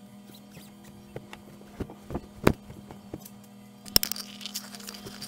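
A mattress being pushed and shifted into a station wagon's cargo area: scattered knocks, the sharpest about halfway through, then a rustle of the fabric cover near the end, over a steady low hum.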